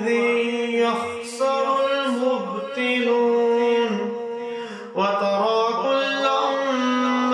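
A man reciting the Quran in a melodic, chanted style, holding long steady notes with a short break for breath about five seconds in.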